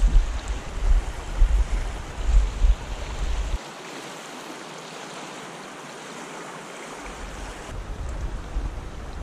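Shallow river water rushing steadily over a riffle, with a low rumble of wind on the microphone that cuts off abruptly about three and a half seconds in.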